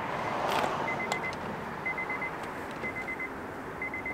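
A 2009 Honda Civic's door-open warning chime: a short pattern of about four quick high beeps, repeating about once a second. It shows that the battery still has charge. A brief rush of noise comes about half a second in.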